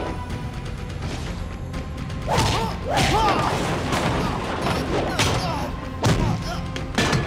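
Cartoon fight-scene sound: tense background score with heavy thuds and hits. About two seconds in comes a louder burst of blows with a strained cry, and more sharp impacts follow near the end.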